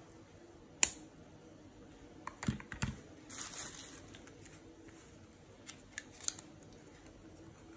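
Hands handling a lipstick case and small cardboard cosmetics cartons: a sharp click about a second in, a few knocks and a short papery rustle near the middle, then light clicks as a small carton is opened.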